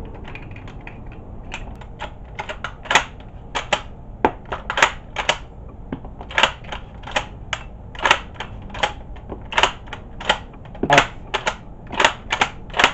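Cartridges being pressed from a stripper clip into a 3D-printed 12-round extended magazine in a K31 Swiss rifle: a quick, irregular run of sharp metal clicks and clacks.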